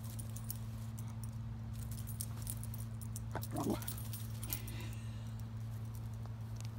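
Dog's collar tags jingling in quick little clicks as the dog spins and darts about, with a short pitched cry about halfway through. A steady low hum runs underneath.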